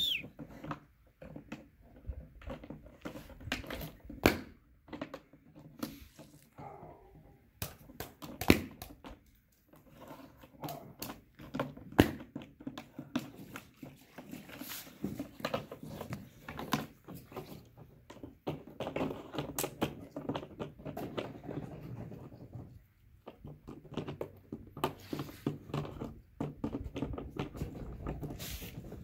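Puppy dragging and pushing a plastic bucket across stone paving: irregular knocks and thumps of the bucket on the tiles with scraping between, a few sharp knocks much louder than the rest.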